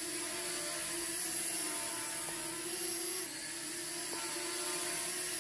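Holy Stone HS340 mini drone in flight: its brushed motors and propellers whir with a steady pitched hum, on its second speed setting after one motor was replaced. The pitch dips slightly about three seconds in.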